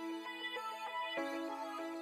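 Soft instrumental background music with sustained notes; the chord changes about a second in.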